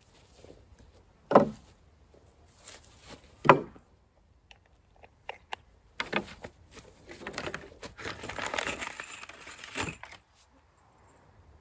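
Two sharp knocks of wooden boards, about two seconds apart, as a wooden table frame is handled during assembly. Then about four seconds of rustling and crinkling of handled packaging.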